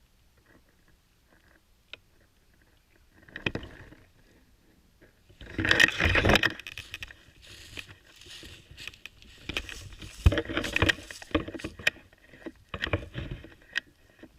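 Irregular scraping and rustling, in bursts, loudest about six seconds in, with scattered sharp clicks and knocks later on.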